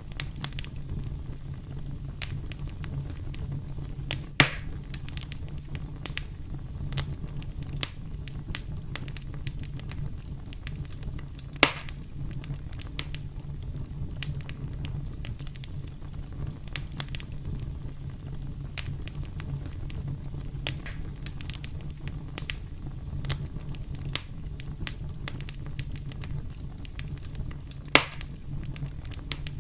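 Campfire crackling: a steady low rumble of burning wood under a constant scatter of small crackles, with three louder pops, at about 4 seconds, 12 seconds and near the end.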